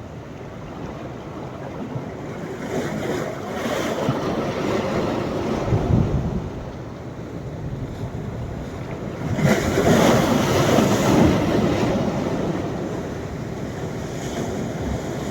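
Sea waves breaking and washing up a sandy beach on a rising tide. Two surges can be heard, the louder one about ten seconds in, with wind buffeting the microphone now and then.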